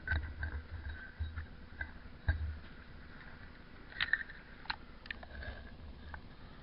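Scattered, irregular clicks and light knocks, with low thumps in between.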